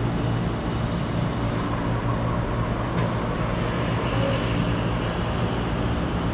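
Steady road traffic noise: a continuous rumble with a low hum underneath.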